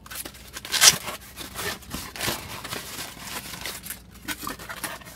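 Small cardboard box being handled and opened by hand: irregular scraping, rustling and crinkling of cardboard as its flaps are worked open, with one sharper, louder scrape about a second in.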